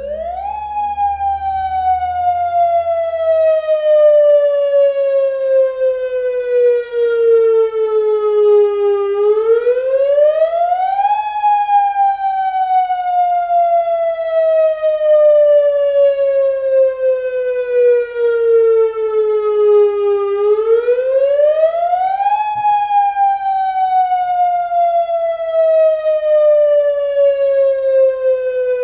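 Tsunami warning siren wailing: one tone that climbs quickly over about two seconds, then sinks slowly over about nine, the cycle repeating three times.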